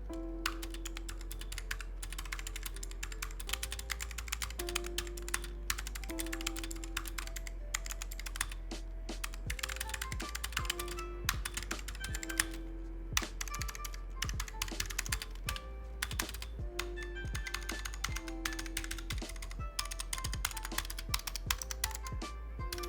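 Fast typing on a Razer Huntsman Mini 60% keyboard with Razer purple clicky optical switches and double-shot PBT keycaps: a dense, continuous run of sharp key clicks. Background music plays underneath.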